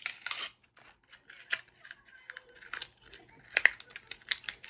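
Packaging of an electric toothbrush being handled and opened: short rustles of plastic and cardboard with scattered sharp clicks, a louder rustle at the start and a sharp snap a little after the middle.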